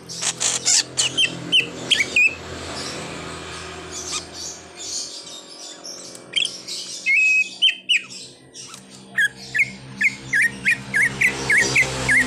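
A cucak ijo (green leafbird) singing in sharp, quick chirps and short whistled notes, with clicks between them. The notes come in a burst at the start, a held whistle about seven seconds in, and a fast run of repeated chirps near the end.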